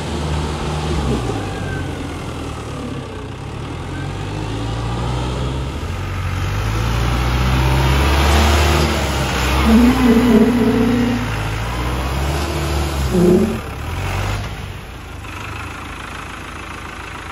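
Kartar 5936 tractor's Kirloskar diesel engine running as the tractor drives past. It grows louder as the tractor comes near, is loudest a little past halfway, then eases off, its pitch shifting with the throttle.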